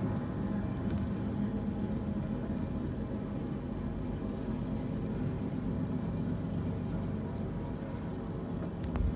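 Intermodal freight train cars rolling past, a steady low rumble of wheels on rail, with a brief knock near the end.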